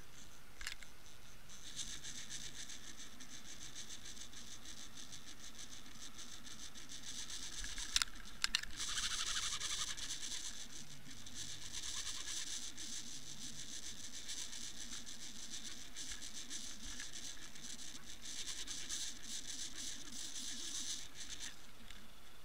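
Dense, fine crackling and scratching heard underwater through a camera housing. It starts about a second and a half in and cuts off shortly before the end, with two sharp clicks about eight seconds in.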